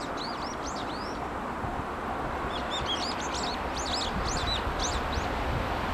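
Small birds chirping in quick, arching notes, a short bout at the start and a longer run from about two and a half seconds in, over a steady low rumble that grows slightly louder as a freight train hauled by an EF510 electric locomotive approaches from far off.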